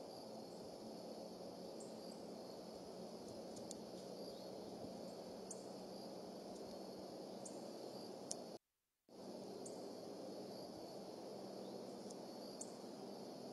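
Steady outdoor background noise with faint, high, short chirps scattered every second or so. Just past two-thirds of the way through, a click is followed by the sound cutting out completely for about half a second.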